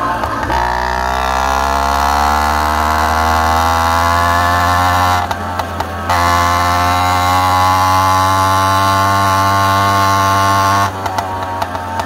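Two-stroke motorized bicycle engine accelerating hard, its pitch climbing steadily for about five seconds. It eases off for a moment, then holds at high revs before dropping back near the end.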